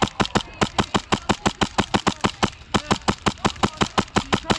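Airsoft electric gun firing full-auto bursts, sharp evenly spaced shots at about seven or eight a second, with a brief pause about two and a half seconds in.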